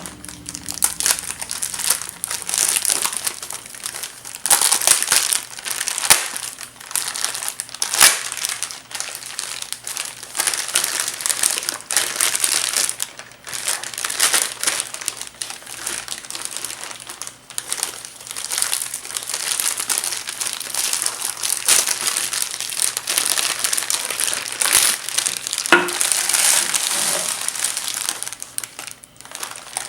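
Packaging wrapping being crinkled and pulled open by hand while unwrapping, a continuous rustle broken by sharp crackles.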